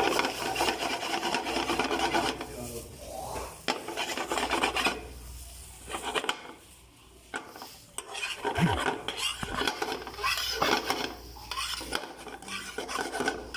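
A spatula scraping and stirring rice in a pan, in runs of strokes with short pauses, while the seasoning is mixed into the garlic rice.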